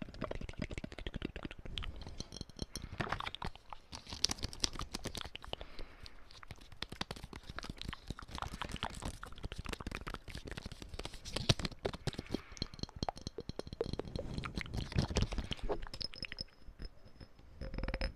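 Close-miked ASMR mouth sounds mixed with tapping: a dense, irregular run of quick clicks and taps.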